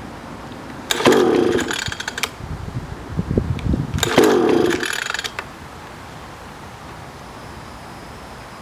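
Two pulls on a small 3.5 hp outboard motor's recoil starter, about three seconds apart; each time the engine turns over briefly, its pitch falling, and does not fire.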